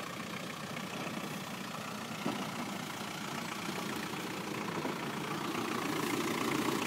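Classic Range Rover's engine running at low revs as the 4x4 crawls over rocks, with one sharp knock a little over two seconds in; the engine grows louder near the end as it comes close.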